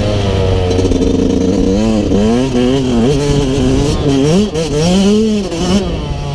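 Yamaha YZ125's two-stroke single-cylinder engine under way, its revs easing off at first, then rising and falling several times in quick succession as the throttle is worked.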